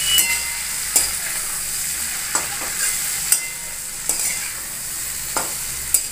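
Potatoes and long beans sizzling as they fry in a metal kadhai, with a metal spatula scraping and knocking against the pan about once a second as the spices are stirred in.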